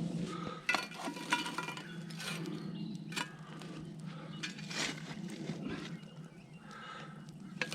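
Metal clanks and clinks of camp oven cookware being handled, a handful of separate knocks with a brief metallic ring, over a steady low hum.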